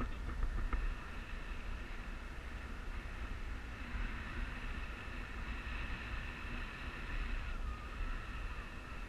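Wind rushing over a pole-mounted action camera's microphone during tandem paraglider flight, a steady low rumble with a hiss over it.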